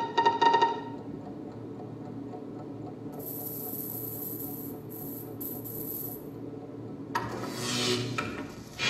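Aerosol spray-paint can hissing in bursts, the loudest about seven seconds in and again at the end, over a steady low hum. A few tuned percussion notes ring out in the first second.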